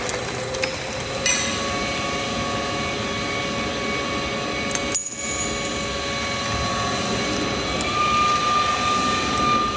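Machinery running steadily: a hum with several whining tones. There is a brief dropout about halfway, and the main tone steps up slightly in pitch near the end.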